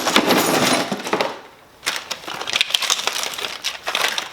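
Packaging crinkling and loose hand tools knocking together as items are rummaged through in a box: a dense crinkling rustle for about the first second, a brief lull, then a run of sharp clicks and knocks.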